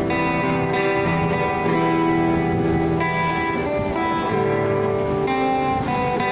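Electric guitar played through PA speakers, picking a slow instrumental intro of sustained, ringing notes that change about once a second.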